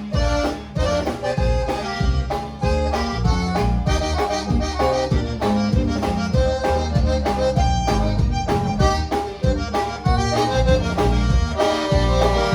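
Live conjunto band playing an instrumental break: an accordion carries the melody over bass and drums keeping a steady beat.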